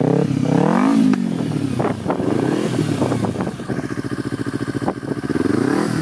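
2011 Kawasaki Ninja 250R parallel-twin engine running through a Yoshimura carbon fiber slip-on exhaust. It is revved once, peaking about a second in, then drops back to a pulsing, clattery idle, and starts to rev up again near the end.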